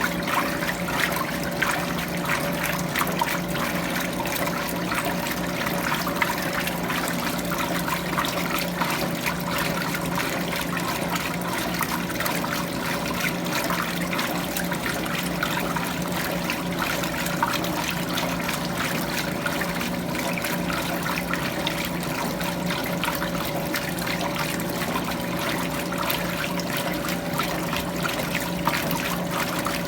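Electrolux Prosdócimo washing machine in its rinse cycle: water running and splashing steadily in the tub, over a steady machine hum.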